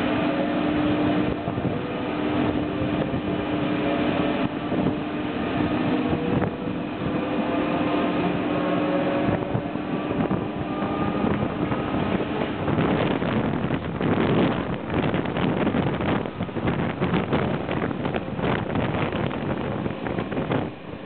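Electric passenger train running, heard from an open window of the train: a steady motor hum with slowly rising whines as it gathers speed. From about halfway in, wheels clatter and rattle over the track while wind buffets the microphone.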